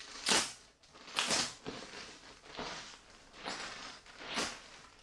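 Clear plastic packaging bag crinkling and rustling in the hands in about five separate short bursts, as a padded tool bag is worked out of it.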